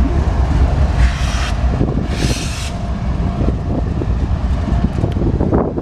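Wind buffeting the microphone of a camera carried on a moving bicycle: a heavy, steady low rumble. Two brief hissing bursts come about one and two seconds in.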